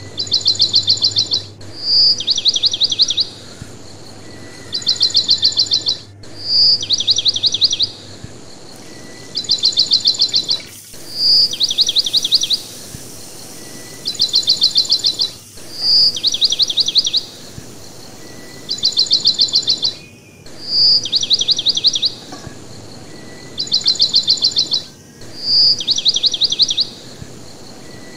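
Looped recording of high, rapid bird-like chirping trills, each lasting about a second, some led by a short clear note, repeating in an exactly regular pattern about every two seconds.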